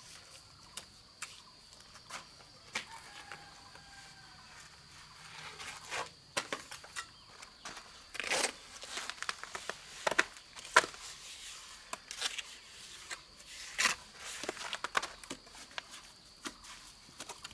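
Irregular light knocks, clicks and scrapes, more frequent and louder in the second half, over a steady high-pitched whine.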